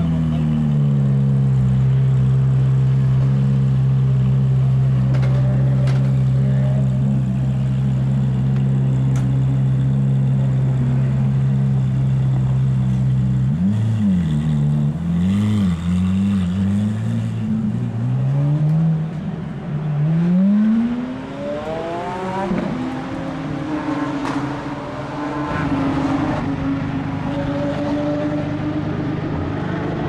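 Ferrari F430 race car's V8 idling loudly and steadily. About 14 s in the revs are blipped up and down a few times, and around 20 s they rise smoothly as the car pulls away. In the last several seconds a different car's engine runs at a steady, higher idle.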